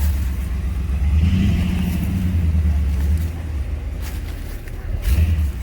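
Off-road vehicle's engine running with a low drone, given more throttle from about a second in, easing off after about three seconds, then a short burst of throttle near the end.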